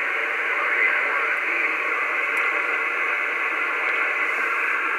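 Steady hiss of static from a Cobra 2000 GTL CB radio receiving lower sideband on channel 36. The calling station is lost in the noise as band conditions fade out.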